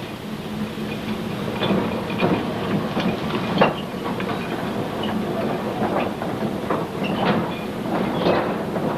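Underground coal-mine machinery running with a steady low hum and rumble, overlaid by irregular metallic clanks and knocks.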